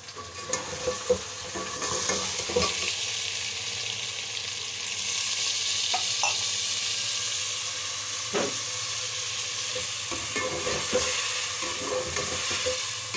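Chicken pieces frying and sizzling in oil in a metal cooking pot while being stirred with a slotted spoon, with scattered knocks and scrapes of the spoon against the pot. The sizzle grows louder about two seconds in and then holds steady.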